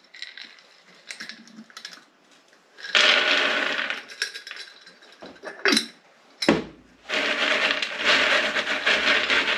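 Dried alder cones and seeds rattling and scraping in a wooden tray as they are stirred and shaken by hand to loosen the seeds, with sharp clinks of glass jars being handled and set down about halfway through.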